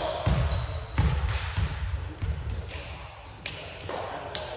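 Sneakers squeaking on a hardwood gym floor, briefly about a second in and again near the end, amid scattered thuds of feet and a ball on the floor.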